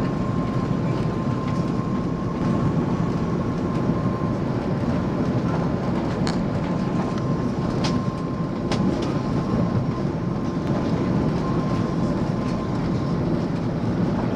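Jet airliner cabin noise during final approach and landing: a steady rumble of engines and rushing air with a thin steady whine that fades out near the end. A few faint knocks come around the middle.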